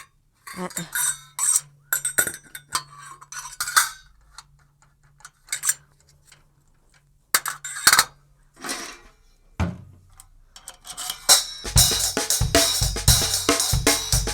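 Metal drum hardware clinking and knocking as stand and cymbal fittings are handled and adjusted. From about twelve seconds in, a drum kit is played, with steady hits and cymbals ringing.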